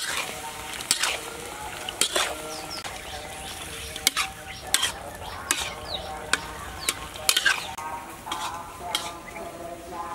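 A spatula stirring and scraping sliced liver and chilies in a metal wok, with frying sizzle underneath and irregular scrapes and knocks about once a second.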